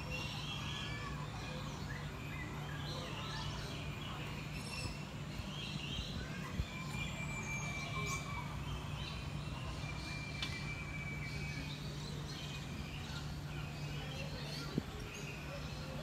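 Many birds chirping and calling in an aviary, short scattered calls throughout, over a steady low hum. Two soft knocks stand out, one about a third of the way in and one near the end.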